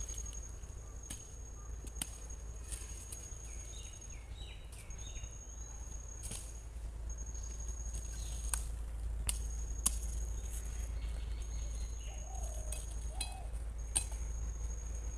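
A sickle blade chopping through plant stems and into soil, a handful of sharp separate cuts. Behind it, a thin high trill repeats in phrases of about a second and a half, over a steady low hum.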